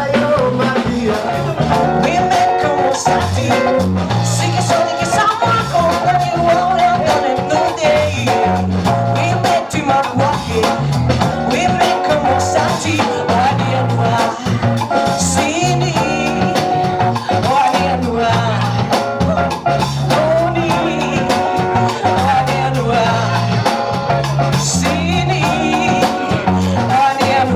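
Live band playing a song with electric guitars and a drum kit keeping a steady beat, and a woman singing into a microphone.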